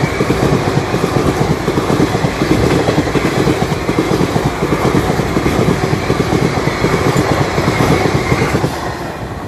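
Express train's coaches rushing past close by at speed, the wheels clattering over the rail joints. The noise drops away near the end as the tail of the train goes by.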